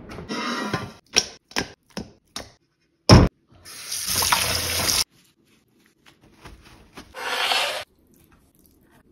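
A few short kitchen clatters, then a loud sharp knock about three seconds in. A kitchen tap then runs into a steel bowl for about a second and a half, and another short rush of noise comes near the end.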